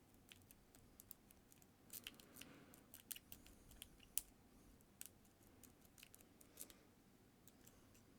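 Faint, irregular clicks and scrapes of a lock pick and tension wrench working the pins inside the small keyway of a trigger lock.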